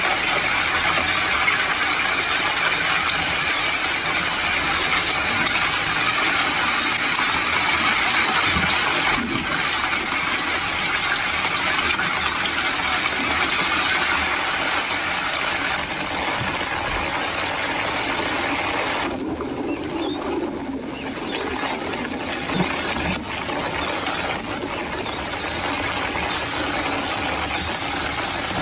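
Steady hiss of rain and tyres on a wet road, heard from inside a moving vehicle; the hiss thins out about two-thirds of the way through.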